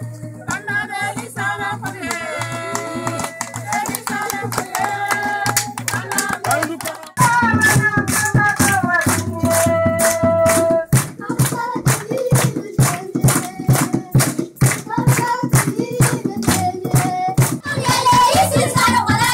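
Group of women singing a traditional call-and-response dance song over steady hand percussion. About seven seconds in it cuts abruptly to a louder song, where rapid, evenly spaced percussion strokes carry the beat under the voices.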